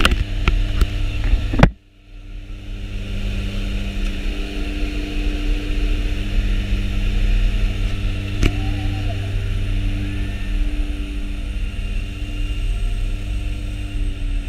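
Jump plane's engines and propellers droning steadily, heard from inside the cabin, a constant low hum with a few steady tones over it. A few clicks come early, the sound drops out briefly about two seconds in and then fades back up, and a single sharp click comes near the middle.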